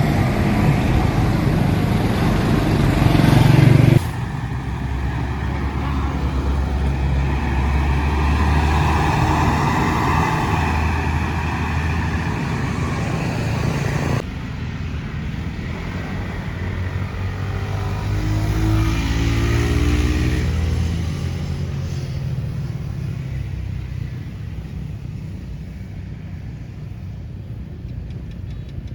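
Bus engines running and moving off, heard in three edited clips with abrupt cuts about four and fourteen seconds in; the engine pitch rises briefly in the last clip.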